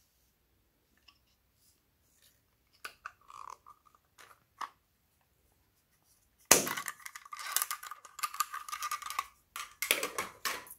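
A few light clicks of small plastic cases being opened, then, about six and a half seconds in, a dense rattling and clinking of small plastic add-ins like sequins being shaken out onto a glass bowl, with a ringing note. A second, shorter burst comes near the end.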